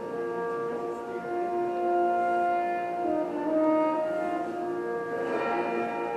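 Soundtrack music added to a silent film: a slow melody in long held notes on a horn-like brass sound.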